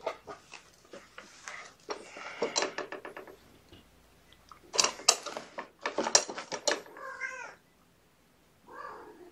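A run of quick clicks from handling the kittens and the plastic scale tray, then a young kitten mewing twice near the end.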